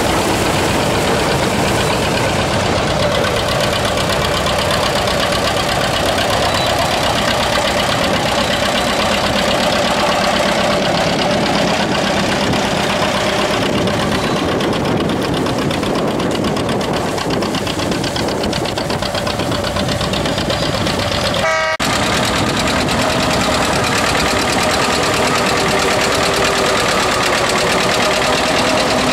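Antique farm tractor engines running steadily under load while pulling plows through cornstalk stubble, with a brief break about three-quarters through. In the last part the tractor is a John Deere 630, with a two-cylinder engine.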